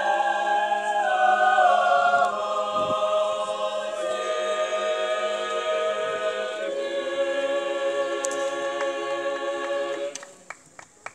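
Mixed choir singing a cappella in slow held chords, closing on one long chord that stops about ten seconds in, followed by a few sharp clicks.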